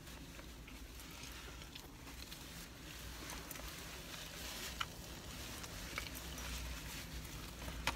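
Faint chewing and mouth sounds from eating a flaky pastry beef patty, with a napkin rubbed against the mouth near the end. A couple of small clicks come about five and six seconds in, over a low steady hum.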